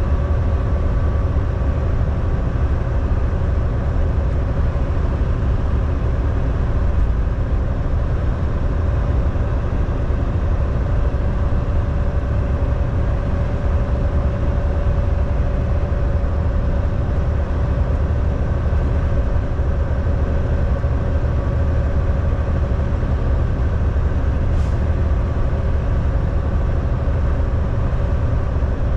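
Volvo semi truck driving at a steady pace: a constant low diesel engine and road drone with a faint steady whine above it.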